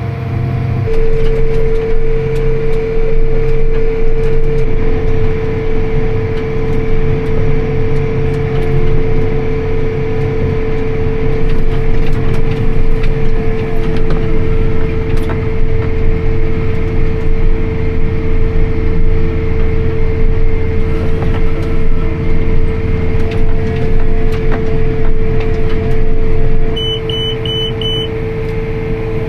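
Tractor engine running steadily under load while baling hay, with a constant whine from the machinery. About 27 s in, a run of short, high electronic beeps sounds and the engine noise drops a little.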